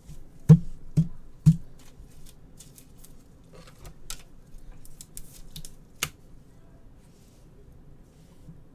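Trading cards and their plastic holders handled on a table while a pack is opened and sorted: three sharp taps about half a second apart, then lighter clicks and rustles with one more sharp click about six seconds in.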